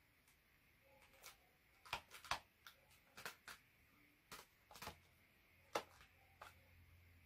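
Paper dragon puppet's folded-paper jaws snapping: about a dozen sharp, irregularly spaced clicks.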